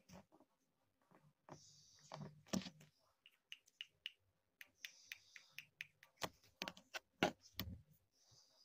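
Faint, irregular soft clicks and taps, several a second at times, with a few brief breathy hisses.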